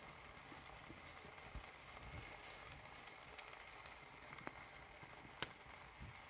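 Faint scattered crackles and pops from beef steak cooking in its own juice in a pan over a wood fire, with one sharper pop about five seconds in.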